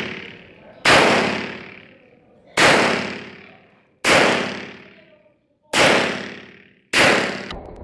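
Semi-automatic pistol fired five times in slow, deliberate single shots, roughly one every one and a half seconds, each report followed by a long echoing tail that fades away before the next shot.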